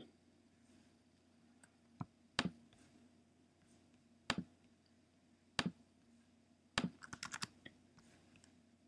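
Clicking and typing on a computer keyboard: a single sharp click every second or two, then a quick run of about six keystrokes near the end.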